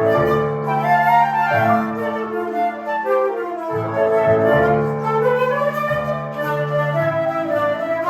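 Two flutes playing a duet, a moving melody over held lower notes.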